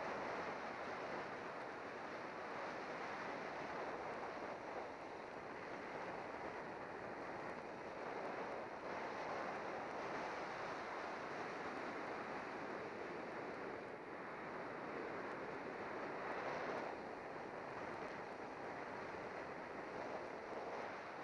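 Rushing wind buffeting a bike-mounted camera's microphone during a fast road-bike descent, a steady roar of noise that swells slightly a couple of times.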